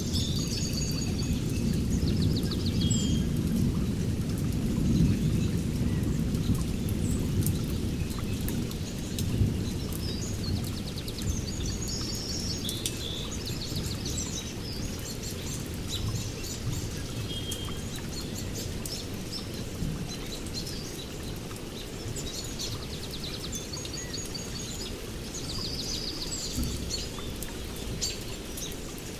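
Rolling thunder rumbling low and slowly dying away over the first half, under steady rain. Birds chirp and trill throughout.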